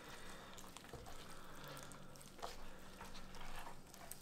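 Faint, soft wet handling noises and a few light clicks as a raw spatchcocked chicken is turned over on a cutting board, over a low steady hum.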